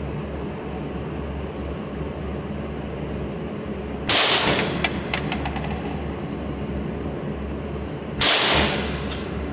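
Two gunshots at an indoor range, about four seconds apart, each ringing off the walls; a run of small clicks follows the first. A steady low ventilation hum runs beneath.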